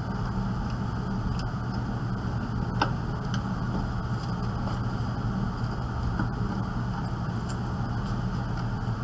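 Steady low mechanical hum of room machinery, such as an air conditioner or fan, with a couple of faint clicks.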